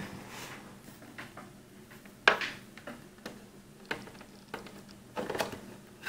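A plastic USB plug being worked into a port on the back of a pen display: handling noise with small clicks and scrapes, one sharp click about two seconds in, and a quick cluster of knocks near the end.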